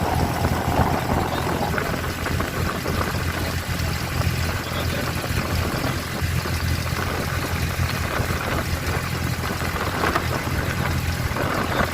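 An abra water-taxi's engine running steadily at a low, even hum.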